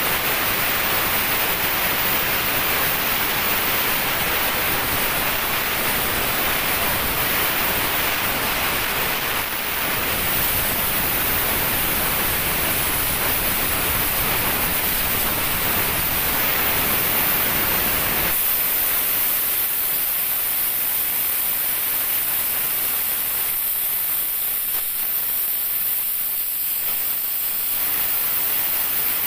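Plasma cutting torch on a profile cutting machine, its arc cutting through steel plate with a steady loud hiss. About two-thirds of the way through, the deeper part of the sound cuts off suddenly, leaving a thinner, higher hiss.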